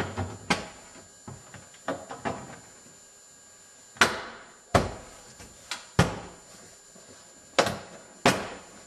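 Plastic door-panel retaining clips being knocked into a truck door by hand strikes on the panel: a series of sharp knocks and thumps at uneven intervals, the loudest ones in the second half.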